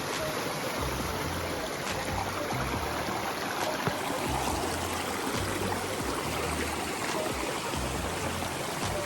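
Steady rushing noise like flowing water, with background music and low bass notes underneath.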